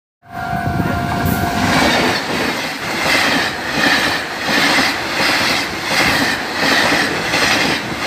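A passenger train's horn sounds for about a second and a half, then the Tze-Chiang express runs through the level crossing at speed, its wheels clattering over the rails in a steady rhythm.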